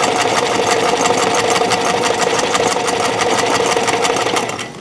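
White domestic all-metal mechanical sewing machine running at speed, stitching through four layers of vinyl. A fast, even clatter of stitches sits over a steady motor hum, and it stops abruptly near the end.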